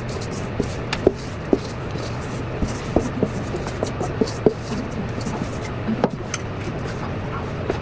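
Spoon stirring thick, still partly dry dough in a mixing bowl: irregular light knocks and scrapes against the bowl, over a steady low hum.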